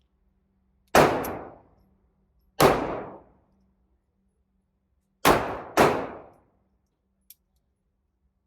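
Four shots from a Ruger LCP .380 pocket pistol, irregularly spaced, the last two about half a second apart, each with a short echoing tail.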